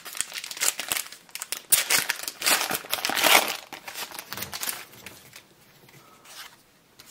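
Foil wrapper of a Sim City: The Card Game booster pack being torn open and crinkled, loud crackling that dies down about four seconds in, followed by faint handling of the cards.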